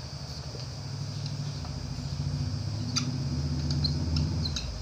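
A low motor hum, like an engine running, grows louder and then drops off sharply near the end. Faint short squeaks of a marker writing on a whiteboard and a single click come through over it.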